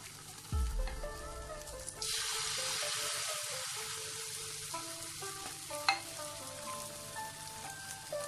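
Beaten egg poured into a hot pan greased with ghee: a sudden sizzle about two seconds in that slowly dies down, over soft background music. A knock near the start and a sharp click of a utensil around six seconds in.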